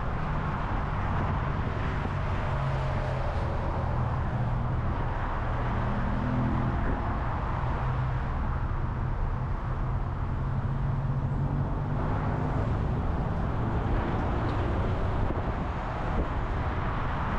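Car driving at highway speed: steady tyre and road noise with a low, even engine drone.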